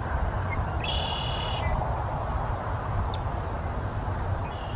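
Male red-winged blackbird singing: a few short notes, then one trilled phrase about a second in and a shorter one near the end. Steady wind noise rumbles on the microphone underneath.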